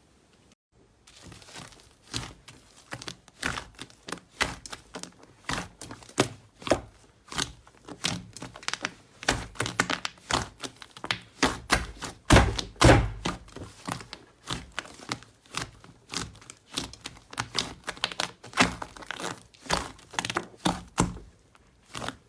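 Slime being pressed and squeezed by hand, making a quick, irregular run of sticky clicks and pops that starts about a second in and stops just before the end.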